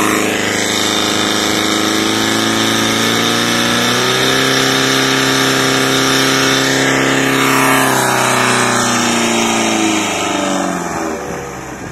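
Portable fire pump's engine running at high revs under load, driving water through the attack hoses. Near the end its pitch falls and it gets quieter as the engine is throttled back.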